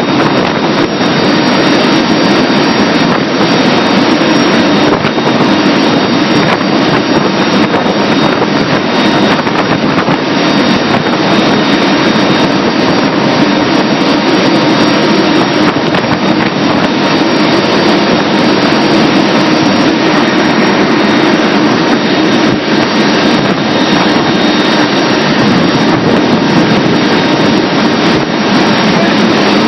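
Steady, loud drone of an airplane's engine, heard from inside the cabin in flight.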